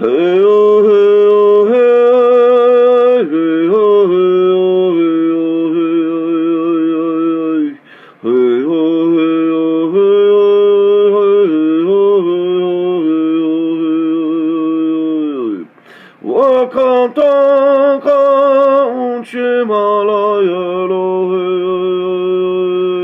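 A man singing a Lakota sacred prayer song (olowan) solo and unaccompanied, in long held notes that slide into pitch, breaking off for breath about eight and sixteen seconds in.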